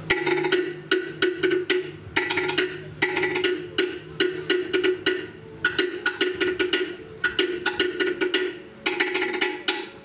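Cook Islands pate, wooden slit-log drums, struck rapidly with sticks: a fast, repeating rhythm of sharp, ringing wooden knocks in short phrases. The second pate plays its beat in between the beats of the lead pate taki.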